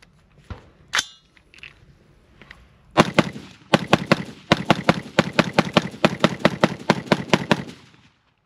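Diamondback DB15 AR-15 rifle fired semi-automatically as fast as the trigger finger allows: a rapid string of about two dozen shots at roughly five a second, starting about three seconds in, with one brief gap near its start, then stopping. It is preceded by a couple of sharp clicks.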